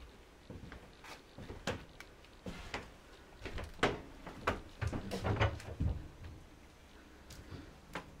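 Irregular knocks, clicks and a few heavier thuds of someone moving about a wooden workshop and handling tools and wood, with no machine running.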